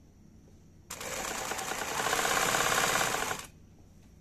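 Brother Pacesetter sewing machine running at speed, stitching the dense zigzag for the first side of a buttonhole. It starts about a second in, runs louder from the middle, and stops abruptly after about two and a half seconds.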